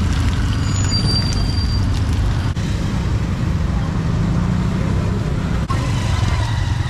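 Steady low rumble of passing motor scooter and motorbike traffic, with general street-market bustle.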